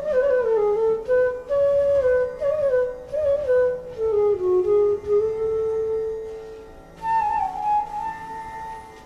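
Solo transverse bamboo flute playing a slow melody, stepping down through several notes to a long held low note about five seconds in, then a softer, higher phrase near the end.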